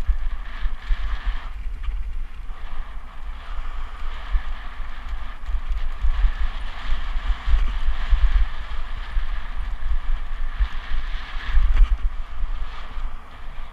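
Mountain bike descending a rocky dirt trail: tyres rolling and crunching over loose stones, with a few faint knocks from the bike. Wind buffets the microphone throughout.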